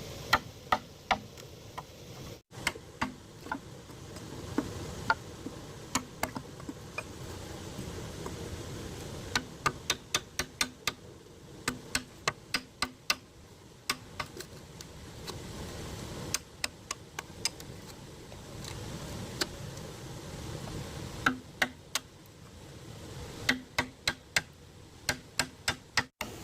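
Sharp taps and knocks in quick runs of several a second, with pauses between runs, each leaving a faint low ring: a tool striking bamboo during construction work.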